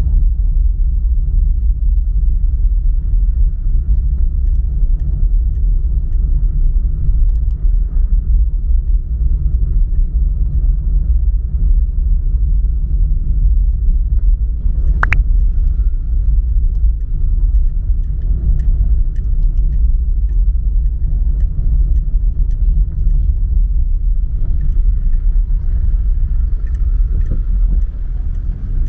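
Steady low rumble of a car being driven, road and engine noise, with one sharp click about halfway through.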